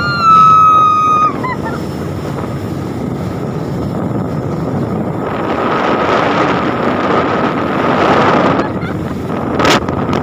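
A woman's long high-pitched scream at the start, over the steady rush of wind buffeting the microphone on a fast-moving speedboat. The wind and water noise swells louder through the middle, and a single sharp knock comes near the end.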